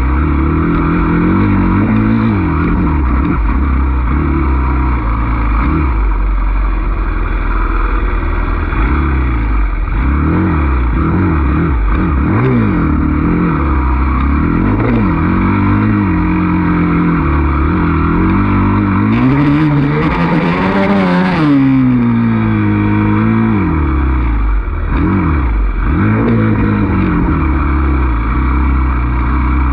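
Dirt bike engine revving up and falling back over and over as the throttle is worked along a trail. The longest, loudest climb in pitch comes about two-thirds of the way in, together with a short burst of hiss.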